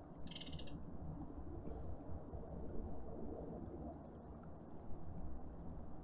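Outdoor garden ambience: a steady low rumble of background noise, with one short, high, rapid trill about a quarter of a second in and a faint high chirp near the end.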